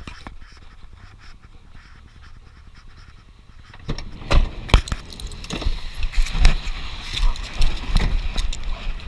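A camera strapped to a dog picks up a low rumble inside a car for the first few seconds. From about four seconds in come loud, irregular knocks and scuffing as the dog gets out of the car and moves over icy slush.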